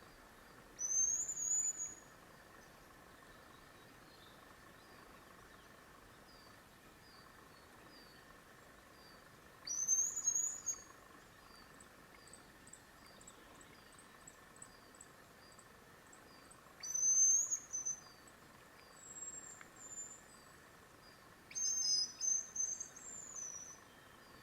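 Female hazel grouse whistling: high, thin whistles a few seconds apart, the last one a longer run of several notes.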